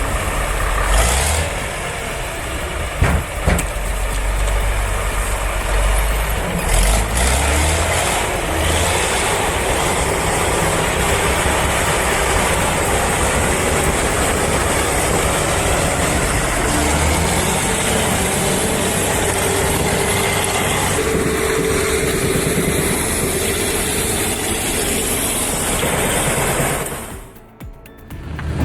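Heavy vehicle's diesel engine running steadily under load, with a couple of sharp knocks about three seconds in. The sound dips out briefly near the end.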